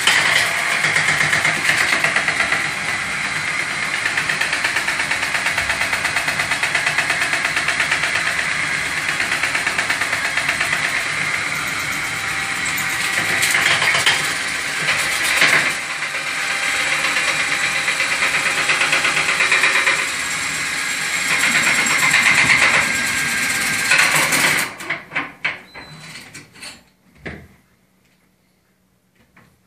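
Cordless drill spinning a flexible rotary chimney-cleaning rod inside a metal stove flue pipe, running steadily and then stopping about 25 seconds in, followed by a few short knocks.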